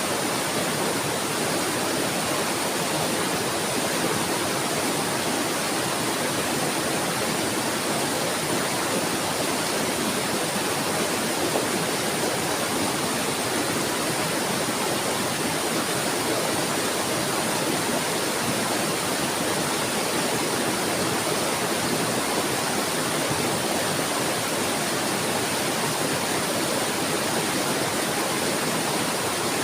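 Flowing water babbling steadily, a dense even rush with no breaks or changes.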